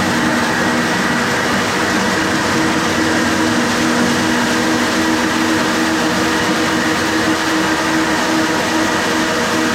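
Hyper Grinder planetary floor sander running steadily with 80-grit abrasive on a pine floor: a loud, even machine drone with a steady hum under the grinding noise.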